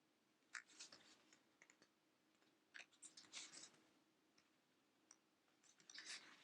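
Faint rustling, scratching and clicking as a Blu-ray box set's packaging is handled, in three short bursts.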